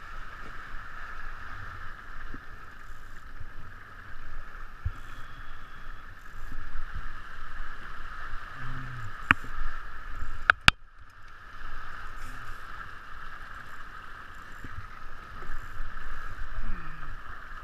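Steady rush of water and wind around a 49er skiff sailing under spinnaker at about four to five knots. A few sharp knocks come about nine to eleven seconds in.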